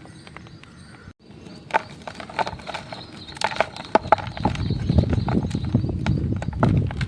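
Dyed gym chalk being crushed, with many sharp crackles and crunches as the pressed block breaks apart. After a brief break about a second in, the crunching grows heavier and denser in the second half as the chalk crumbles.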